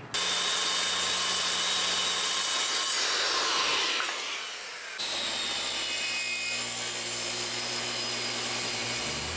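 Electric power saw cutting through a teak-and-holly floorboard, a steady cut that fades about four seconds in and starts again a second later.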